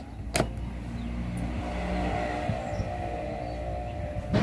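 A sharp plastic click as a mains plug is pushed into a wall socket, followed by a steady low rumble with a hum over it that swells and eases off, and another sharp click near the end.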